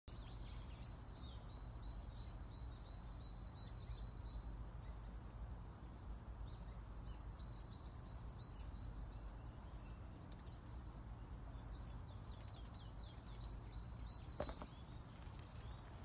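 Small songbirds chirping and calling in short high notes, over a steady low rumble of background noise, with one sharp click about fourteen seconds in.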